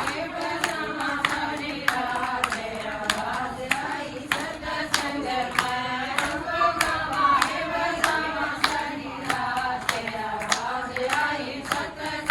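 Voices singing a Haryanvi devotional bhajan, accompanied by hand claps keeping a steady beat, about one to two claps a second.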